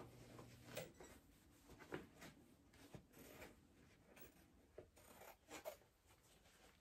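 Faint, irregular snips and rustling: scissors trimming cutaway embroidery stabilizer from the back of a T-shirt.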